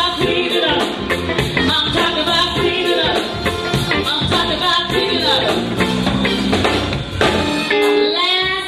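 Live band with drum kit and bass guitar playing the song's groove, with the singer's voice singing over it, most clearly near the end.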